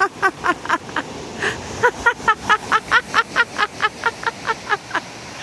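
A woman laughing excitedly in quick runs of short 'ha' notes, about five a second, with a breath drawn in between the two runs.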